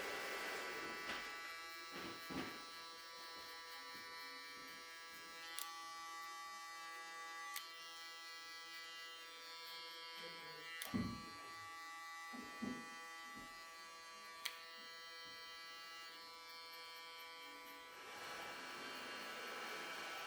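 Electric hair clippers buzzing steadily, with a few short clicks and taps, and a louder hissing noise at the start and near the end.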